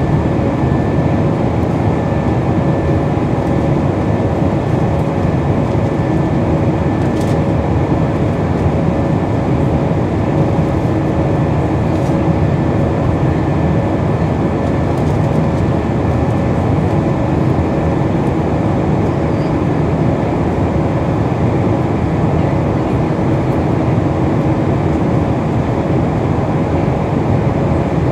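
Steady cabin roar of an Airbus A320's IAE V2500 turbofan engines during the climb after takeoff, heard from a window seat beside the wing, with a few steady whining tones over the rushing noise.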